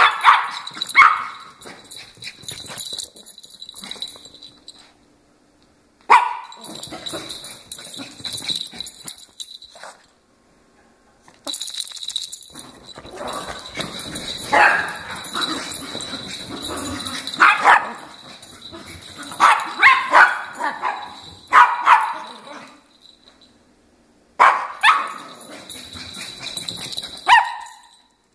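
Small dogs barking and yipping in sharp, repeated calls while they chase each other in play, in several bursts with short silent gaps between them.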